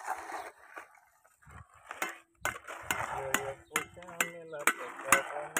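Sharp clinking strikes of tools working stones. They are sparse at first, then come about twice a second from about two seconds in.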